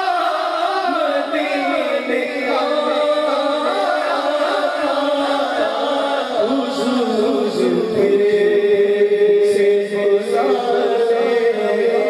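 A man singing a naat into a microphone over a sound system, drawing out long melismatic phrases and holding a long note near the end, with other reciters' voices backing him.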